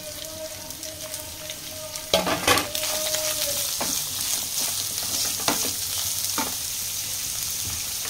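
Chopped onions sizzling as they fry in hot oil in a kadai. The sizzle grows louder about two and a half seconds in. A wooden spatula knocks and scrapes against the pan a few times as the onions are stirred.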